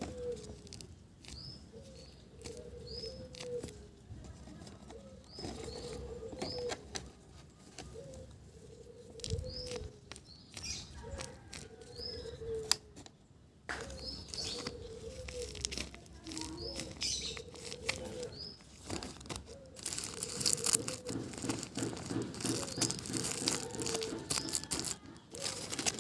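Birds calling: a repeated low cooing with short high chirps about once a second, over scattered clicks and rustling that thicken near the end.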